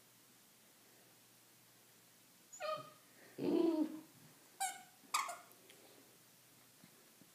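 Squeaky plush dog toy squeaked four times in quick succession as a puppy bites it. The second squeak is the longest and lowest.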